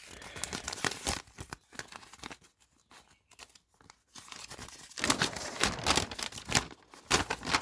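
Paper and plastic packaging being handled, crinkling and rustling in irregular bursts, busier and louder in the second half, as a gauge's wiring-diagram instructions are unfolded.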